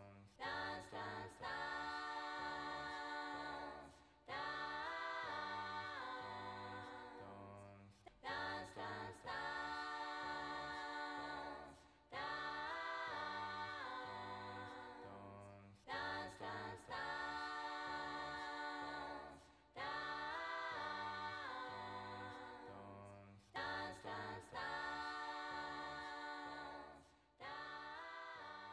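Music from the soundtrack song: layered wordless vocal harmonies repeat the same phrase about every four seconds, a few short notes rising into a long held chord that fades away. The last phrase trails off near the end.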